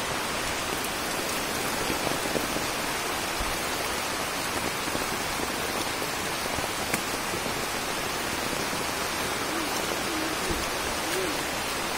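Heavy rain falling steadily on forest foliage and wet ground, an even hiss with scattered drop ticks.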